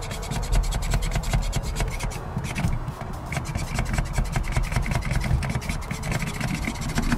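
Cutting cord being pulled through the urethane bead of a quarter glass by a hand-held winder tool: a continuous rasping with rapid, irregular clicks.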